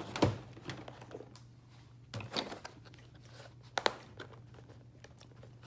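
Handling noise as metal paint tubes are rummaged through in a metal tray: three light clicks or knocks spread over a few seconds, with soft rustling between them.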